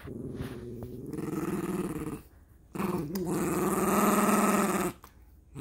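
Small long-haired dog growling with teeth bared, in two long, low, rumbling growls with a short breath between them and a third starting at the very end. The dog is warning at being handled by a man nuzzling her belly after being disturbed while resting.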